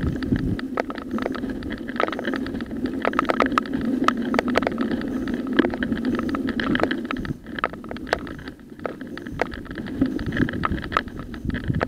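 Mountain bike rolling fast downhill over loose gravel: tyres crunching on stones, under frequent sharp clicks and knocks from the bike rattling over the bumps. It eases off for a couple of seconds past the middle.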